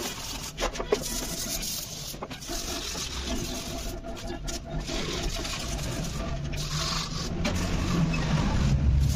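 Hand sanding: abrasive paper rubbed back and forth over a Honda Activa scooter's plastic body panel, a rough scratching in uneven strokes, with a low rumble underneath.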